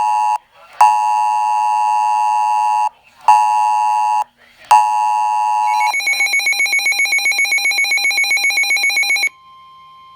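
Emergency alert attention tone for a tornado warning: a loud two-tone beep in a long-short-short pattern. About six seconds in it switches to a faster, higher pulsing beep, which cuts off suddenly about three seconds later.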